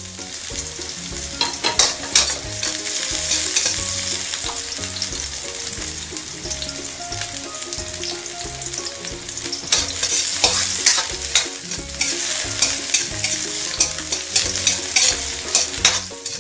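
Chopped onions sizzling in hot olive oil in a wok, with scattered sharp crackles. Near the end a spatula stirs them in the pan.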